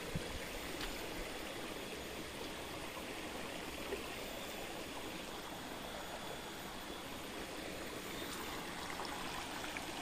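Small, shallow stream flowing over rocks and stones: a steady rush of water.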